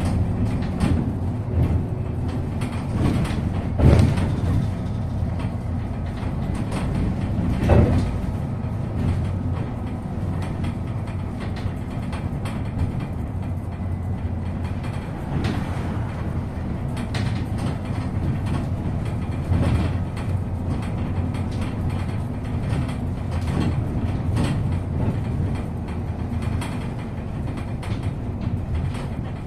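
MAZ-215 articulated city bus heard from inside while under way: a steady low engine and road rumble with the body rattling. Two louder thumps come about four and eight seconds in.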